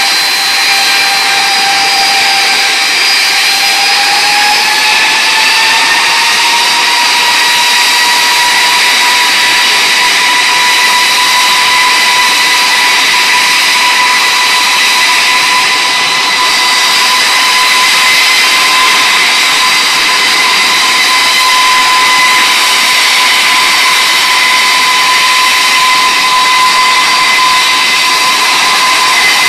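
Rolls-Royce RB211-524GT turbofan of a Boeing 747-400 in a high-power ground run: a loud rushing roar with a steady whine. The whine rises in pitch a few seconds in as power is increased, then holds level.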